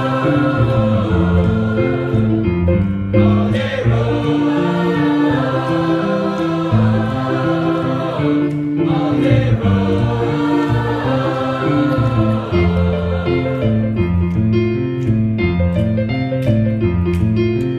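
A mixed high school choir singing held notes in harmony, with electric keyboard accompaniment. Over the last few seconds short sharp clicks join in, about two a second.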